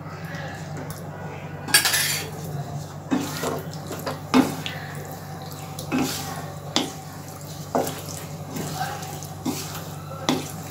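Spoon scraping and knocking against a nonstick kadhai (Indian wok) as chicken pieces are stirred into thick gravy. The strokes come at an irregular pace of roughly one a second.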